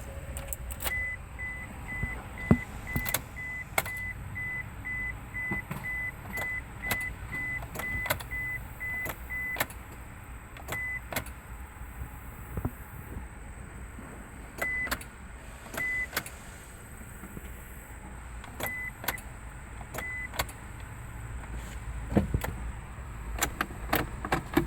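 Isuzu Rodeo's warning chime beeping at a steady high pitch, about three times a second, stopping near the middle and then sounding only in short spells. Irregular sharp clicks come throughout, with no cranking or engine sound, which fits a vehicle that won't crank.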